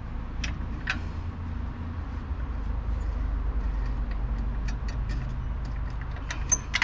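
Short clicks and taps from hand-handling the drill press's metal parts, coming thicker in the second half, over a steady low rumble.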